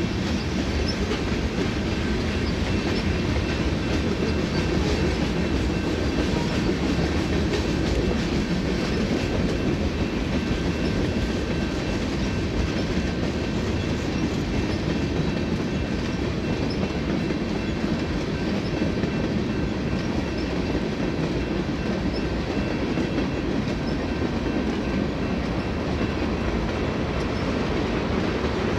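Tank cars of a freight train rolling past at steady speed: a continuous rumble of steel wheels on rail with faint high ringing tones from the wheels.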